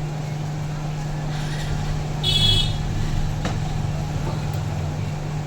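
Hot-air SMD rework station blowing steadily, reflowing solder paste into solder balls on a phone's display connector. A brief high tone sounds about two seconds in.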